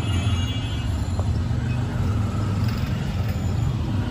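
Steady low rumble of street traffic, like a motor vehicle running close by. A high steady ringing tone fades out within the first second.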